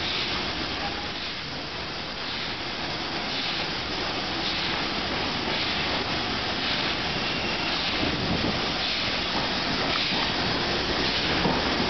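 Steam-hauled train passing at speed: the hiss of LNER B1 4-6-0 No. 61306 Mayflower's steam going by, then the steady rush of its carriages' wheels on the rails.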